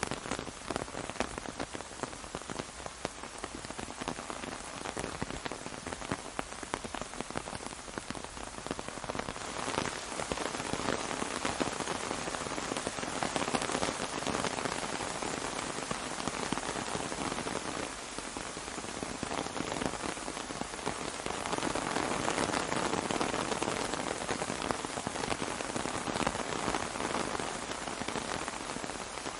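Rain falling on an umbrella: a dense patter of drops that swells heavier for a few seconds several times, most strongly in the second half.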